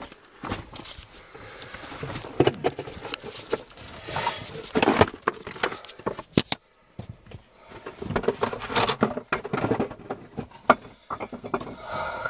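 Irregular scrapes, knocks and clinks of loose bricks shifting as someone crawls over rubble on hands and knees, with scuffing of clothing, busier in two stretches with a short lull between.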